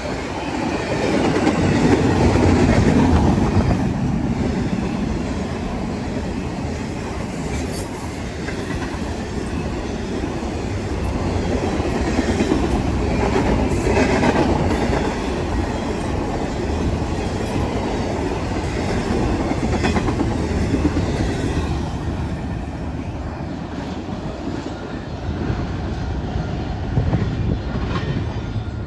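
CSX freight train cars rolling past with a steady rumble, the wheels clacking over the rail joints.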